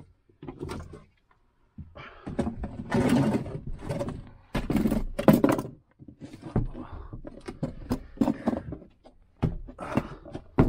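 A person gathering tools and moving about: irregular thuds and knocks with scraping and rustling in between.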